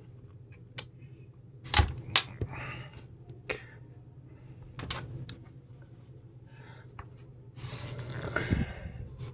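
Hand-drawing a diagram: scattered sharp taps and clicks of a pen or marker on the drawing surface, the two loudest a little under two seconds in, then a scratchy stretch of drawing strokes near the end, over a steady low hum.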